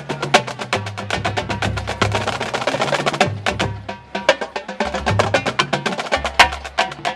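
Marching band percussion playing a fast cadence of sharp, rapid strokes over low held notes, with a brief lull a little past the middle.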